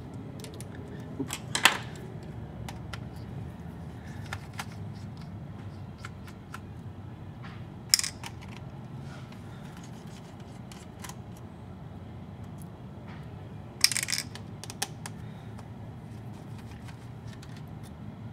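Small clicks and clinks of a precision Phillips screwdriver and tiny screws as the keyboard screws come out of a Dell D620 laptop, with three sharper clinks about 2, 8 and 14 seconds in. A faint low hum runs underneath.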